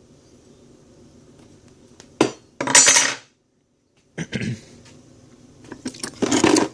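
Metal hand tools clinking and clattering as they are handled and shifted about in a toolbox, in a few short bursts with a sharp knock among them.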